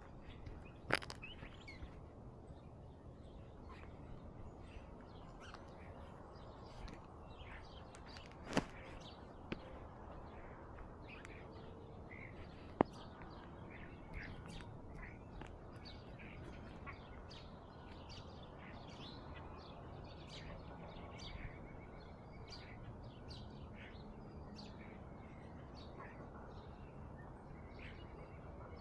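Small birds chirping: many short calls, growing busier about a third of the way in, over a steady low background noise. A few sharp clicks stand out.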